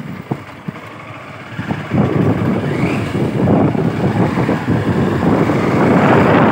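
Wind rushing over the microphone of a moving motorbike, with its engine underneath. The rush is quieter for about the first two seconds, then loud again.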